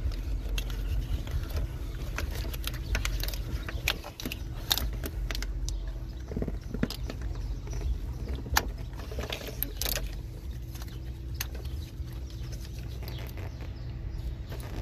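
A gloved hand working among parts in a car engine bay: irregular sharp clicks and light taps over a steady low rumble, with the loudest clicks about five, nine and ten seconds in.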